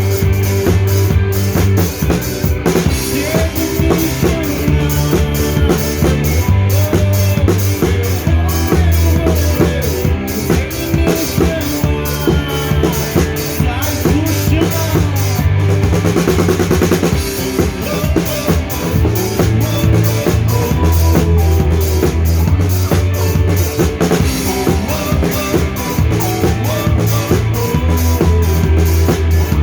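A live band playing an instrumental passage, led by a drum kit keeping a steady beat on bass drum and snare over held bass notes and melodic lines. About halfway through the drums play a dense fill.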